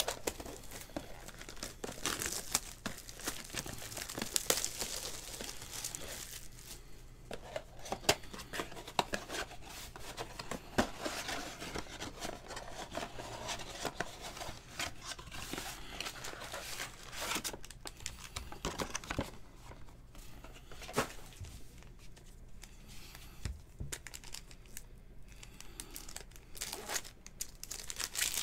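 A 2019 Topps Chrome Sapphire trading-card box being torn open by hand, with crinkling, rustling and many small crackles and clicks of cardboard, wrapping and cards being handled.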